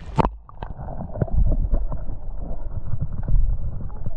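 A camera's microphone plunged into a shallow pond: a splash as it goes in just after the start, then dull, muffled underwater sloshing and knocking, with the high sounds cut off.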